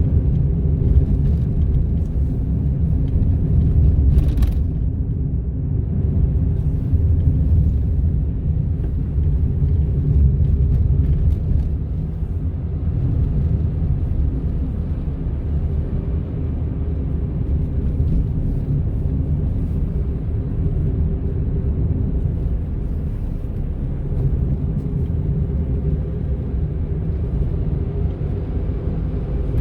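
Cabin noise of a Honda N-ONE kei car on the move: steady engine and road rumble with a constant hum held over it, and a single sharp click about four seconds in.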